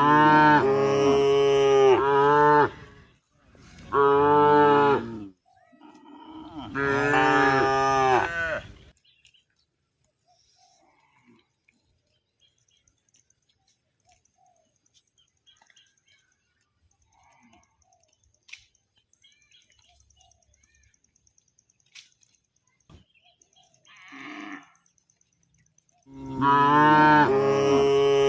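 Cow mooing: three loud, drawn-out moos with a wavering pitch in the first nine seconds, then a long quiet spell with one faint call, and another loud moo starting near the end.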